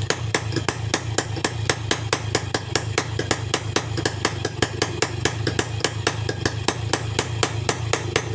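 Motorcycle engine idling over a steady low hum, with sharp, even ticks about six times a second.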